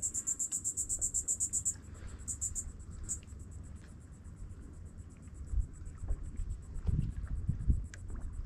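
Insect chirping from the shoreline brush: a high, fast, even pulse of about eight chirps a second. It is loudest for the first second and a half, then goes on more faintly over a low rumble of wind and water.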